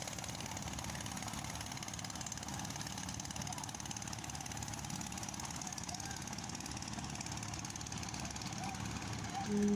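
A river boat's engine running steadily. Right at the end a loud, low, steady horn starts to sound.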